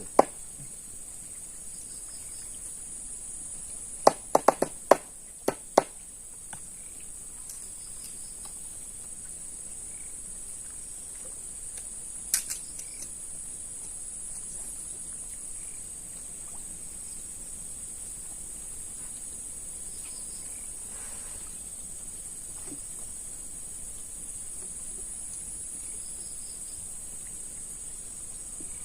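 A steady, high-pitched insect chorus shrilling without a break. A few sharp clicks stand out over it about four to six seconds in, and once more near the middle.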